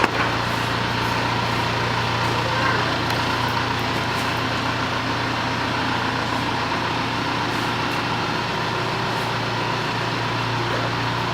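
A steady mechanical hum of a running engine, even throughout with no change in pitch.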